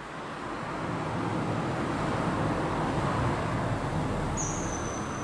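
A road vehicle passing, its noise swelling over the first couple of seconds and then slowly fading. Near the end comes a short, thin, high whistle.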